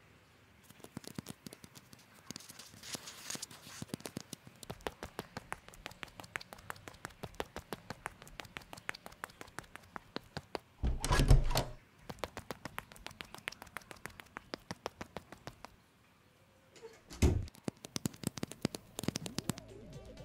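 Hard-soled leather dress shoes tapping rapidly on a concrete floor, several sharp taps a second, in quick stepping like a dance. Two heavy thuds break in, one a little past the middle and one near the end.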